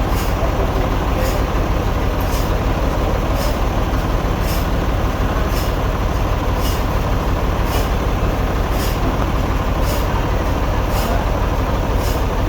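Sawmill machinery running steadily, a heavy low hum with a short high tick repeating about once a second.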